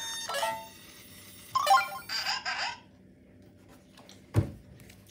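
Boxer toy robot giving electronic beeps and a run of chirping robot-voice sounds as it reads a game activity card, then one sharp thump about four seconds in as a finger presses on top of it.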